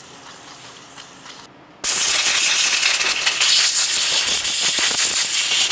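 A hard spray hissing onto oily engine bolts to clean the oil off them before thread-locker goes on. It starts suddenly about two seconds in and runs steadily for about four seconds, with light irregular rattling through it.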